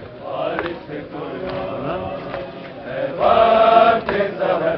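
A crowd of male mourners chanting together, with sharp strikes about once a second. From about three seconds in, a louder, drawn-out cry from many voices rises over the chant.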